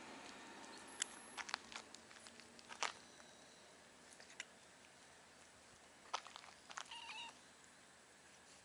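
Cat giving one short meow about seven seconds in, amid a scattering of sharp clicks and taps.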